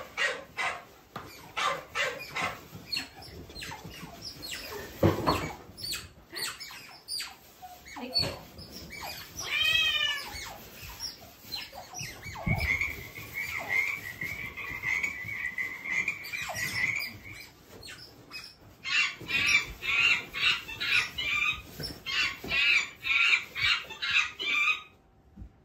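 Recorded animal calls played one after another through a phone speaker: first a dog, then a rising-and-falling whistle-like call and a long steady high-pitched call. Near the end come monkey calls repeated about three times a second.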